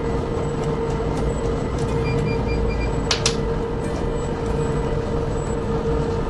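Steady running of an engine or motor, with a constant hum over a low rumble, and a brief sharp sound about three seconds in.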